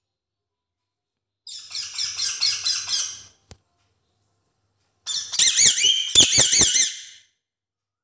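Parrot calls in two bursts of about two seconds each: rapid, high, warbling chatter, the second burst louder and more sharply rising and falling in pitch.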